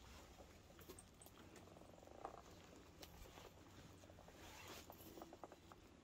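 Near silence: faint outdoor stillness with a few soft scattered clicks and rustles.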